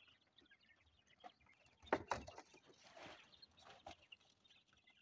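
Quail moving about a brooder box floored with newspaper: scattered faint ticks and scuffles, a loud thump about two seconds in, and a brief rustle about a second later.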